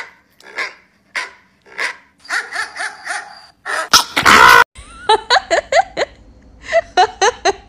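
Dog barking and yipping in short separate calls, with a very loud sudden burst about four seconds in, followed by a woman laughing in quick bursts.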